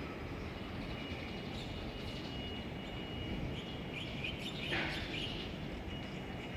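Small birds chirping over a steady low background rumble, with a thin high note early on and a short burst of calls, the loudest sweeping downward, a little past the middle.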